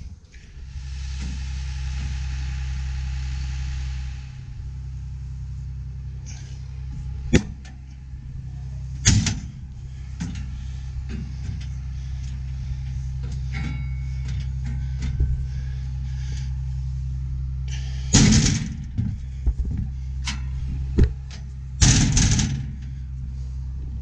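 Case IH combine's diesel engine idling steadily, with a hiss over the first few seconds. Several sharp knocks and thumps sound over the engine, the loudest two coming in the second half.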